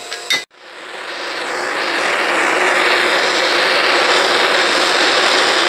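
Gas torch flame roaring steadily as it heats a hardened ax head to temper it; the roar swells over the first couple of seconds and then holds.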